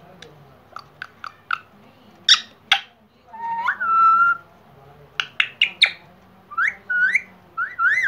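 Indian ringneck parrot calling: short clicks and sharp chirps, a whistle that rises and then holds steady around the middle, and a run of short rising whistles near the end.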